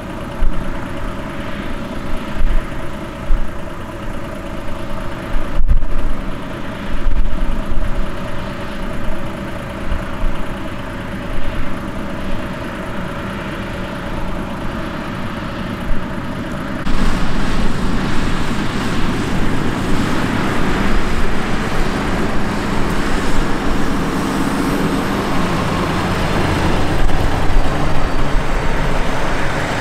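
A motor vehicle running, with a steady hum; about halfway through it changes abruptly to a louder, rougher noise.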